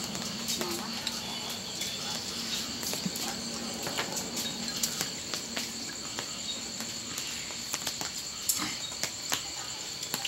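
Night insects trilling steadily in a high, unbroken drone. Scattered light clicks and taps of chopsticks on bowls and the pot come through it, the sharpest about eight and a half seconds in.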